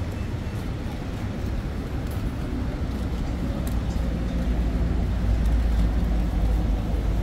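City road traffic: a steady rumble of passing cars that grows louder over the last few seconds.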